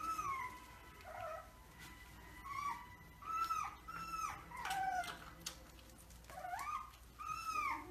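Shiba Inu puppy giving about a dozen short, high-pitched yelping whines, each rising and falling in pitch, in loose bursts, with a few sharp clicks between them.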